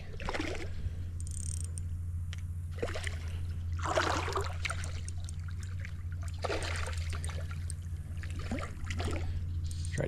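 Water splashing in several short bursts as a hooked smallmouth bass thrashes at the surface while being drawn in, over a steady low rumble.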